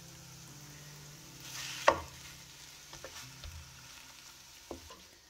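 Raw diced chicken and onions frying lightly in oil in a nonstick wok, stirred with a spatula that scrapes and knocks against the pan, with one sharp clack about two seconds in and a few light taps near the end.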